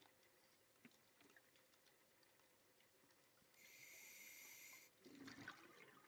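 Faint underwater sound of a scuba diver's regulator: a hiss of inhaled air about three and a half seconds in, then a burst of exhaled bubbles, over a faint crackle of scattered clicks.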